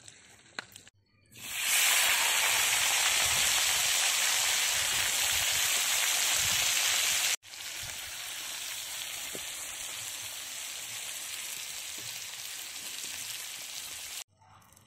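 Potato chunks sizzling in hot oil in a kadai while being stirred with a metal spatula. The sizzle is loud at first, then after a sudden break about seven seconds in it goes on as a quieter, steady sizzle that stops shortly before the end.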